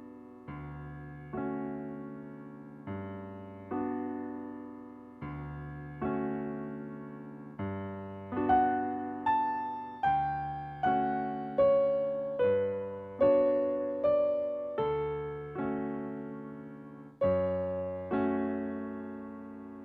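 Piano playing slow chords with a melody above, each note struck and left to fade, the tune climbing higher in the middle of the passage.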